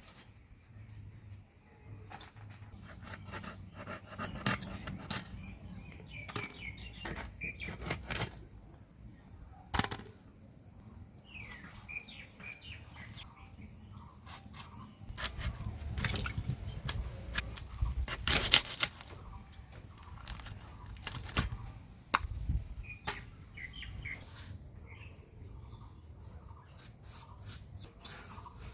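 Cutting up a katla fish with a blade: irregular scraping, clicks and knocks. Small birds chirp now and then in the background.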